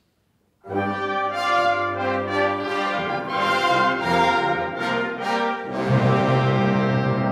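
Full symphony orchestra of strings and brass coming in suddenly after a short silence, about a second in, and playing loud, sustained chords.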